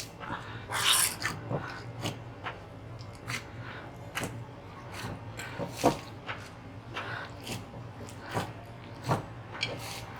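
Hands kneading soft wheat-flour roti dough with wet hands: irregular squishing, pressing and slapping of the dough against the bowl.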